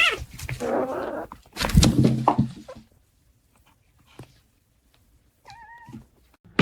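A cat gives a short meow, followed by rustling and a few thuds. Near the end comes a faint, short, wavering high call.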